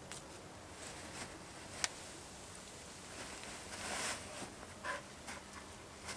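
Dogs shifting about on a fabric dog cushion and blanket: light rustling and scuffling, with a sharp click about two seconds in and a longer rustle around four seconds as the black dog gets up.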